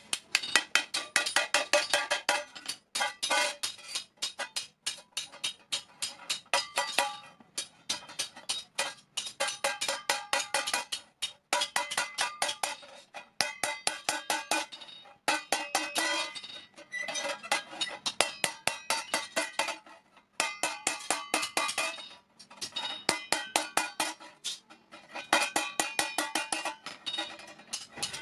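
Hand hammer rapidly striking an iron thali plate on an anvil, each blow ringing out metallically. The blows come in runs of about five or six a second, broken by short pauses.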